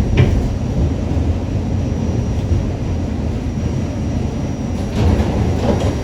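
New York City subway car running on the track, heard from inside the car: a steady low rumble, with a sharp clack right at the start and a louder stretch of rattling about five seconds in.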